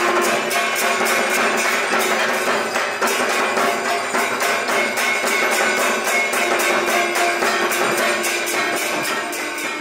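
Durga Puja arati music: rapid, even percussion of about four or five strokes a second with metallic jingling and ringing hand bells over a few held tones. It fades out near the end.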